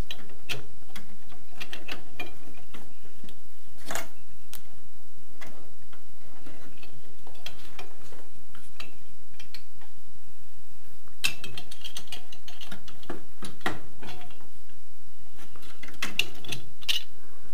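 A wrench and threaded metal pipe fittings under a wall-mounted gas boiler clicking and clinking as the connections are loosened and unscrewed to disconnect the boiler. Scattered sharp clicks, with a few denser clusters of them.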